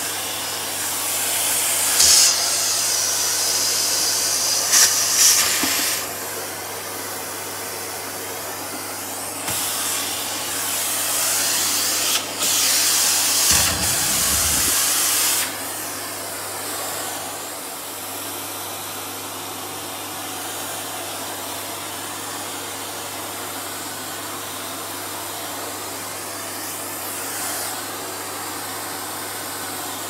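Vacuum cleaner running steadily, its suction hiss turning louder and sharper for two stretches of a few seconds each, from about two to six seconds in and again from about ten to fifteen seconds. A short low rumble comes about halfway through.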